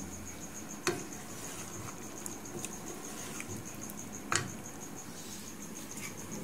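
Wooden spatula stirring chicken and tinda in a cooking pot, knocking sharply against the pot twice, about a second in and again past four seconds, with a few lighter scrapes and ticks. A steady, high, pulsing chirp runs underneath.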